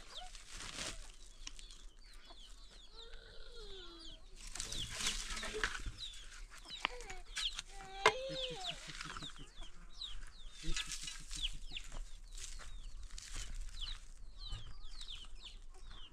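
Chickens clucking, with many short high chirps throughout and a sharp knock about eight seconds in.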